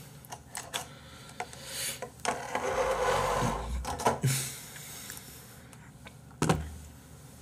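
Handling noise of a person moving at a desk: scattered small clicks and taps, a longer rustle with a low rumble in the middle, and a single sharp thump near the end.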